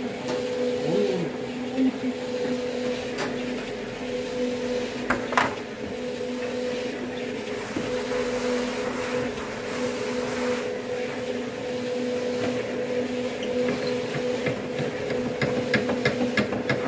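Steady hum of bakery machinery, a constant pitched drone, over the soft scrape of hands spreading cornmeal across a metal baking tray. A couple of sharp knocks, and a quick run of clicks near the end.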